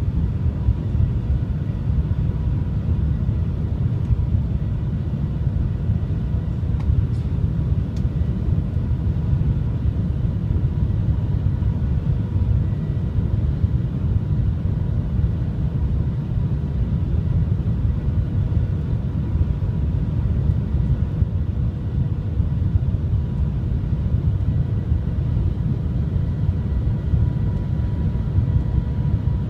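Cabin noise of the Shanghai Transrapid maglev train in motion: a steady low rumble with a faint steady hum above it.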